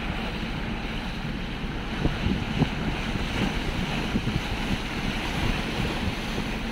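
Wind buffeting the microphone on a moving motor boat, over the steady rush of sea water, with a few stronger gusts about two seconds in.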